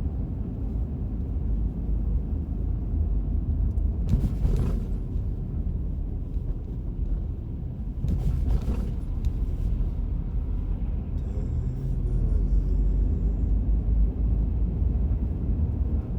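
Road and engine rumble heard inside a moving car's cabin, steady and low, with two brief rushes of noise about four and eight seconds in.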